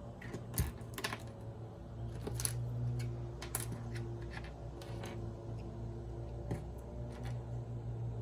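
Computer keyboard keys being pressed one at a time: scattered, irregular clicks rather than steady typing, over a steady low hum.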